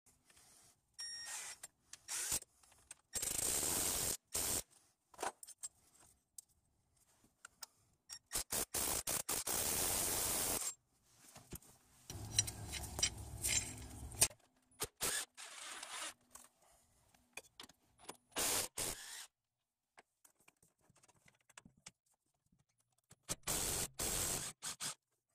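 Hand tools clinking and scraping against engine parts in short separate bursts, with dead silence between them.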